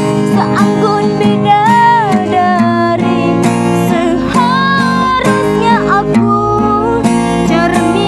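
A woman singing high, ornamented melodic lines (cengkok), her pitch bending and wavering on held notes, over a strummed acoustic guitar.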